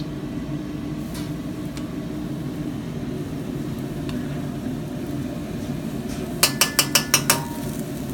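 A spoon tapping quickly against the rim of a cooking pan, about six sharp knocks in a second near the end, over a steady low hum.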